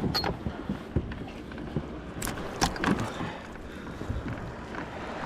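Wind on the microphone over a kayak, with a few sharp clicks and knocks: one at the start and three close together a little after two seconds in.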